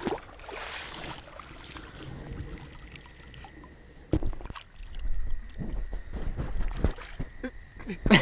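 Shallow river water splashing as a fish is landed by hand, then knocks and rumbling from the action camera being handled, starting about four seconds in.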